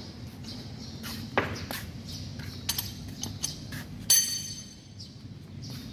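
Steel hand tools knocking and clinking against metal: several short knocks, then a ringing metallic clang just after four seconds in, the loudest strike.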